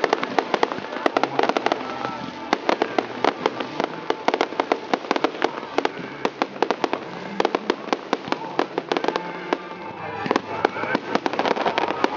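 Aerial fireworks bursting overhead: a dense run of sharp cracks and pops, many a second, thinning briefly about ten seconds in before picking up again.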